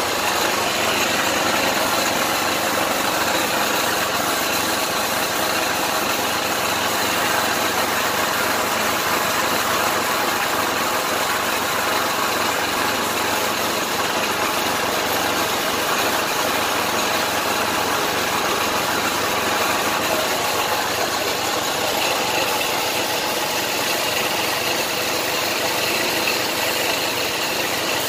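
Gravity-feed paint spray gun hissing steadily as it sprays paint onto a motorcycle frame, with an air compressor running underneath.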